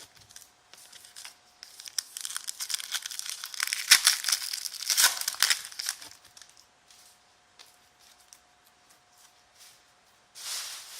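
Trading card pack wrapper being torn open and crinkled by hand. The loudest crackling comes in a stretch of a few seconds, followed by softer rustles, then another short crinkle near the end.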